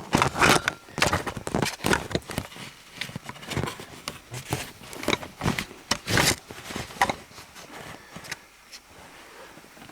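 Handling noise: irregular clicks, taps and scrapes, busiest for the first seven seconds and thinning out near the end.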